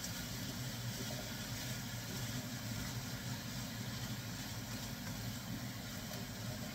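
Chopped vegetables and butter beans cooking in a stainless steel pan on a gas hob and being stirred, heard as a steady low hum with a light hiss over it.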